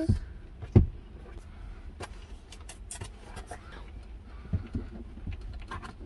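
Low steady rumble of a car cabin with one sharp thump a little under a second in, then a run of light clicks and rustles, as of a cardboard box and seat being handled.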